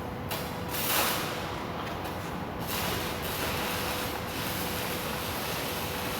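Gas brazing torch flame hissing steadily, with a louder rush about a second in, over a faint steady hum.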